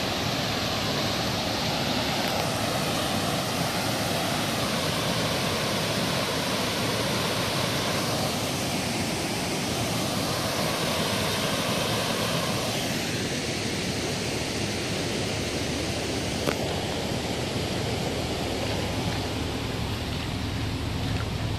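Steady rush of a small rocky waterfall swollen with flood runoff, pouring into standing floodwater. The rushing eases about halfway through.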